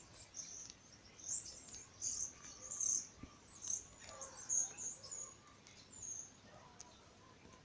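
Small songbirds chirping: a quick run of short, high chirps, busiest in the middle and dying out about six seconds in.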